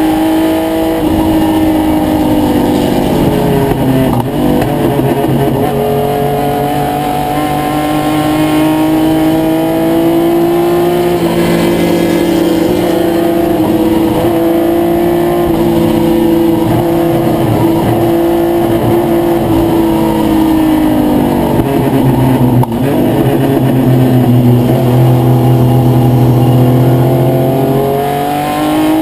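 1972 Triumph GT6 race car's straight-six engine heard from inside the cockpit under hard racing use, its note climbing, held high for several seconds, then falling about twenty seconds in and climbing again, with a quick dip and rise near the end.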